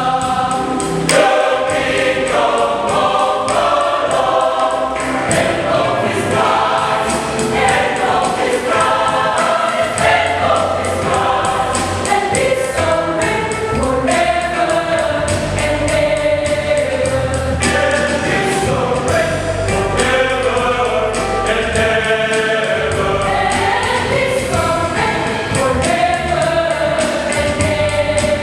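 Mixed choir singing a gospel song with a steady beat, the voices in harmony.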